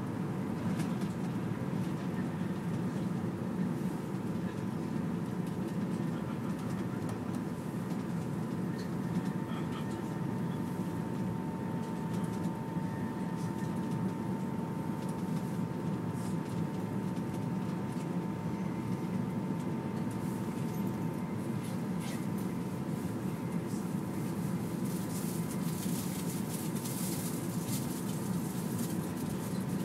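Cabin noise of a Flytoget electric airport express train running at speed: a steady low rumble with a faint steady whine above it.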